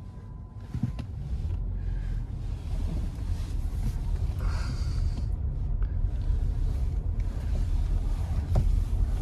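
A car running, a steady low rumble that slowly grows louder as it gets under way, with a small knock about a second in.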